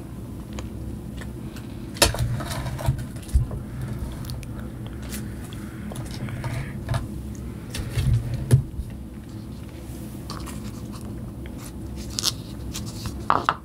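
Close-miked biting and chewing of pineapple pieces, in uneven bites with the sharpest about two seconds in and again around eight seconds.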